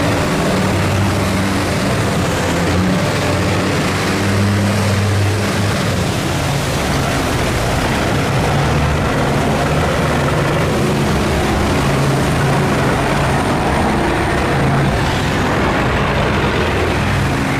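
Engines of several canal boats running, their low drone shifting in pitch as boats pass close, over a loud steady rushing noise.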